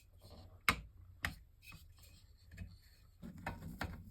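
A handful of sharp, irregular clicks and ticks of a screwdriver working the CPU cooler's mounting screws as they are tightened onto the motherboard. The loudest two come about a second apart early on, and two more come near the end.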